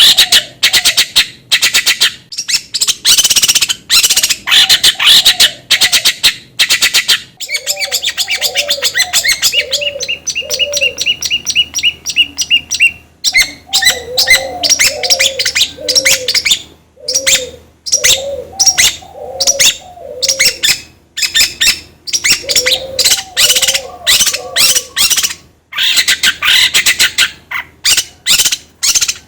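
Long-tailed shrike song: fast, harsh, scratchy chattering calls, with a repeated dove-like cooing in groups of three or four notes joining about a quarter of the way in and a short run of clear whistled notes in the middle.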